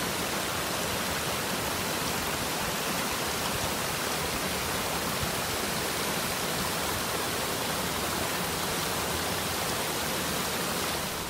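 Creek water rushing steadily over a small waterfall, an even hiss with no let-up.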